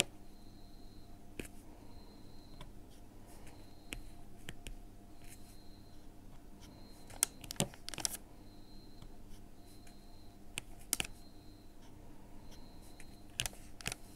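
Light clicking of a diamond-painting pen as round resin drills are picked up and pressed onto the sticky canvas, each one a sharp little tap. They come scattered and irregular, with a few close pairs about halfway through and near the end.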